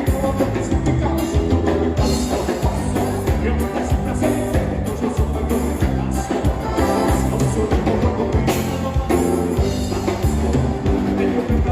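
Gaúcho band music with drums, a bass line and a steady dance beat.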